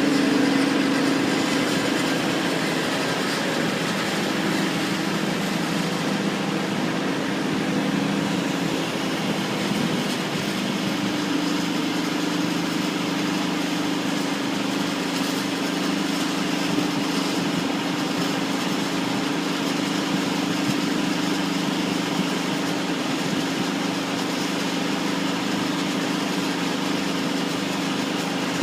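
Engine-driven concrete saw running steadily: a constant engine hum with a hiss over it.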